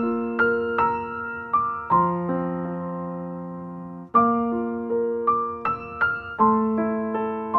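Background piano music: notes struck one after another over held chords, each fading away. Near the end of a long held chord about four seconds in, it drops out for an instant before new notes start.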